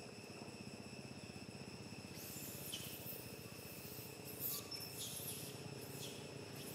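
Steady high-pitched insect chorus, several thin tones held without a break, with a few short bursts of hiss laid over it from about two seconds in.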